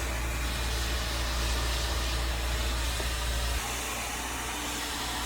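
Salon hair dryer running: a steady rushing of air with a low rumble underneath that drops away about three and a half seconds in.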